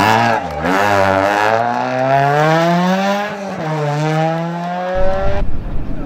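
Rally car engine running at high revs, its pitch dipping briefly just after the start and again a little past three seconds, climbing in between. About five seconds in the engine note breaks off and a rough, low rumbling noise takes over.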